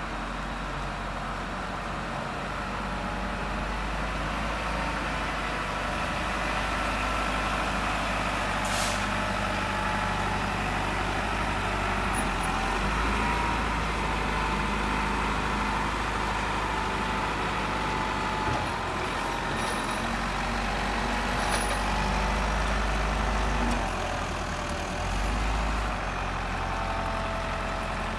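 1988 Caterpillar IT18B wheel loader's diesel engine running steadily as the loader drives and lifts its bucket. A higher whine rises and falls over the engine, with one brief sharp click about nine seconds in.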